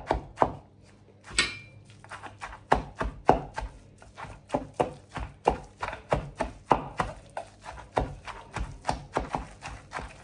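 Wooden pestle pounding grilled oyster mushrooms into a chili paste in a wooden mortar: a steady run of dull knocks, about three a second, with a short pause near the start.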